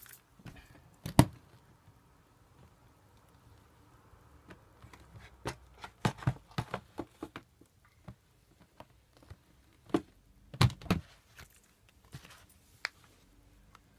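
Irregular knocks, taps and clicks of objects and packaging being handled and moved, with one sharp knock about a second in and clusters of knocks around the middle and near eleven seconds.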